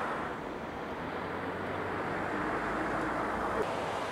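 Steady road traffic noise: a low rumble with a hiss, swelling a little in the middle.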